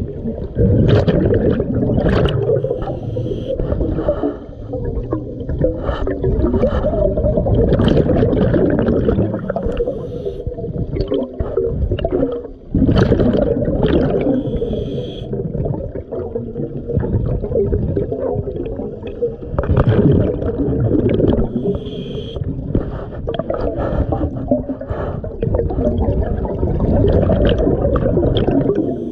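Scuba regulator breathing recorded underwater: exhaled bubbles gurgle and rumble in long surges, with short pauses between breaths.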